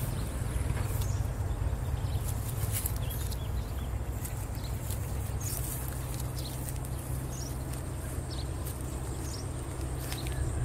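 Scattered light thumps, patters and rustling in low ground-cover as a caught fish is grabbed and handled on the grass, over a steady low rumble.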